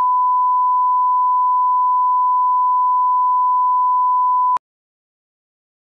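Line-up test tone of the bars-and-tone signal, one steady high pitch that cuts off suddenly about four and a half seconds in.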